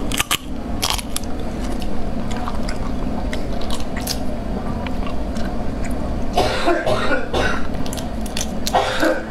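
Close-miked wet chewing with small sticky clicks, and wet squelching as fingers pull apart sauce-covered sea snails. Louder wet bursts come about two-thirds of the way through and again just before the end, over a steady low hum.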